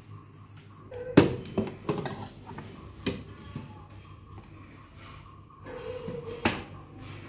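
Metal inner pot of a Cuckoo rice cooker clanking as it is set down into the cooker body: a cluster of sharp knocks a little after a second in, another around three seconds, and a last, loudest clunk near the end, each after a brief ringing of the metal.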